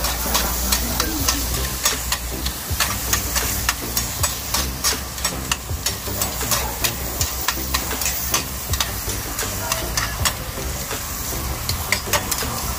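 Food frying and sizzling on a hot plate, a steady hiss broken by many sharp clicks and taps.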